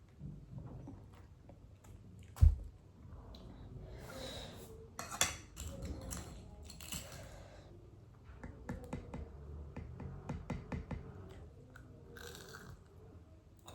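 Close-up eating sounds: chewing and biting, with a sharp thump about two and a half seconds in and a run of quick clicks and crunches later.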